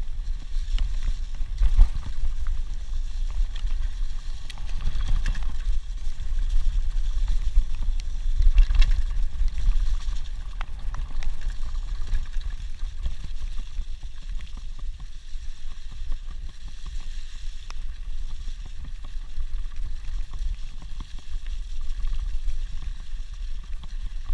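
Mountain bike rolling fast downhill over a grassy dirt track, with wind rumbling steadily on the handlebar-mounted action camera's microphone and occasional knocks as the bike goes over bumps.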